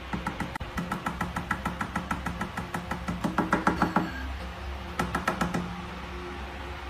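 Fingers tapping fast on a glass tabletop, about six or seven knocks a second with a slight ringing of the glass. The tapping stops about four seconds in, then comes back briefly a second later.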